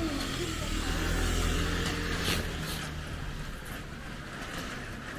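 Motor scooter passing by, its small engine growing louder about a second in and then fading away.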